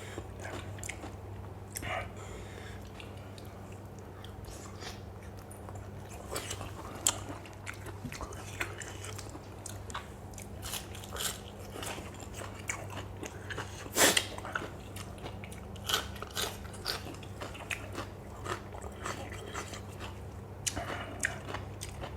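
A person chewing and crunching mouthfuls of spicy som tum made with crisp lotus stems and fresh shrimp, in irregular close-up crunches, the loudest about two-thirds of the way through. A steady low hum runs underneath.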